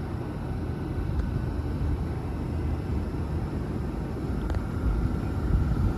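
Class 197 diesel multiple unit's engines running as it pulls away, a low rumble growing steadily louder, with a faint steady whine joining in the second half.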